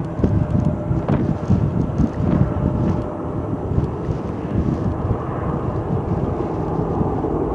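Boeing 757-232's jet engines running as the airliner rolls out after touching down, a continuous rumble that is louder and more uneven for the first few seconds and then steadier.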